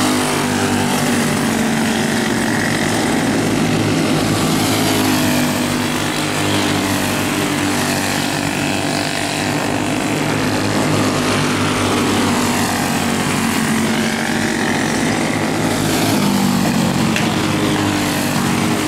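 Small racing go-kart engines running on a dirt oval, their pitch rising and falling as the karts speed up and slow through the turns.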